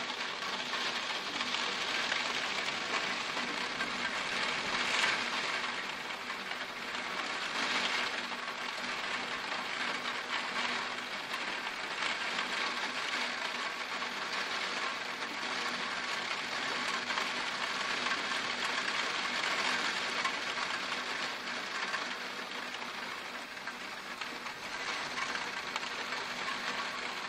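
Torrential rain pouring down in a steady, dense hiss, swelling slightly now and then.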